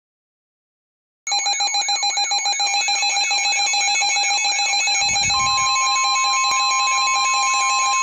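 Midland NOAA weather radio sounding its alert alarm for a severe thunderstorm warning. The alarm starts abruptly about a second in as a fast repeating warbling siren tone, about four sweeps a second, and a steady tone joins it about five seconds in.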